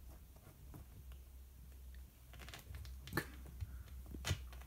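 A kitten pawing and scrabbling at things on a shelf: light scratching, rustling and clicking, with two sharper clicks about three and four seconds in, over a low steady hum.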